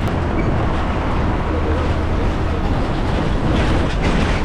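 Cabin noise inside a moving old diesel bus: the engine runs with a steady low rumble under road and wind noise coming in through the open windows.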